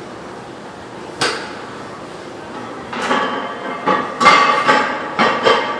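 Weight plates and metal gym equipment clanking. One sharp clank about a second in, then a run of clattering knocks with a ringing edge over the last three seconds.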